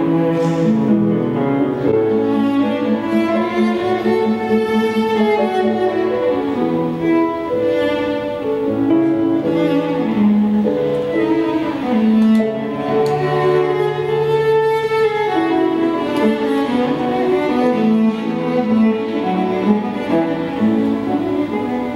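Bowed cello playing a melody with grand piano accompaniment: a continuous line of sustained notes that move in pitch, with a long held low note a little past the middle.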